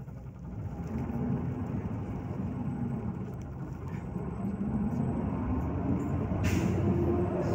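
Volgabus-5270 city bus heard from inside the cabin as it pulls away and accelerates: the engine note climbs, eases off, then climbs again, growing louder overall. A brief hiss about six and a half seconds in.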